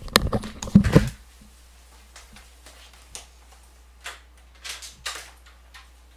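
A loud burst of clattering movement close to the microphone for about a second, then only faint, scattered clicks and rustles.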